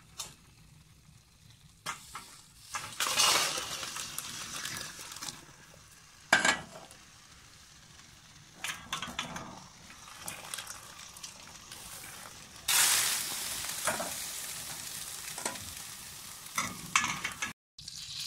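Boiled fiddleheads and their hot water tipped from a saucepan into a stainless-steel colander: two long surges of rushing, splashing water, about three seconds in and again past the middle, with a sharp metal clank between them and smaller clinks of pan on colander. Butter foams and sizzles in a frying pan briefly at the very end.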